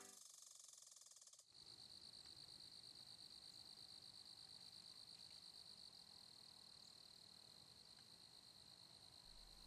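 Faint end of music dying away, then a steady, high-pitched chorus of crickets with a rapid even pulse, heard very faintly.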